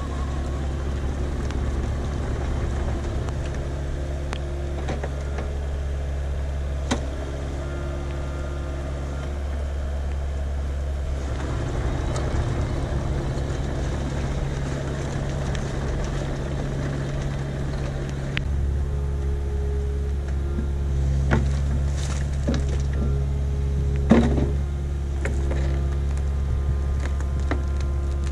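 Kubota KX057-5 mini excavator's diesel engine running steadily, with higher tones that come and go over the engine note and a few sharp knocks and clunks, the loudest near the end.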